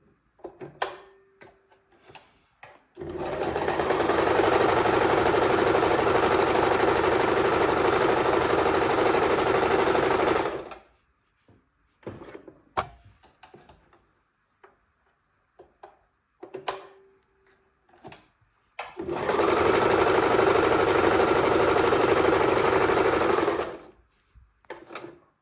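Pfaff hobby 4260 electric sewing machine stitching test patterns on sample cloth in two steady runs, the first about eight seconds long and the second about five. Short clicks and knocks come before and between the runs.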